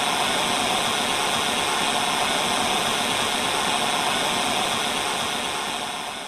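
Steady static hiss, like a detuned TV or worn VHS tape, fading toward the end.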